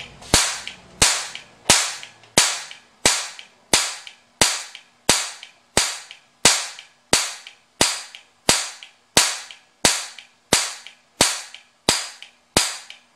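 Spark plug snapping with a repeated high-voltage spark across its water-wetted gap, about one and a half sharp cracks a second, each fading quickly, over a faint steady low hum. The water makes the spark much more intensive.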